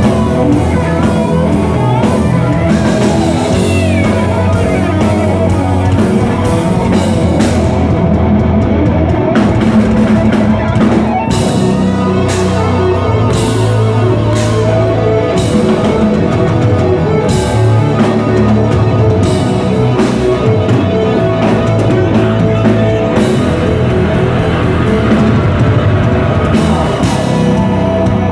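A heavy rock band playing live and loud: distorted electric guitar, bass, keyboards and a full drum kit.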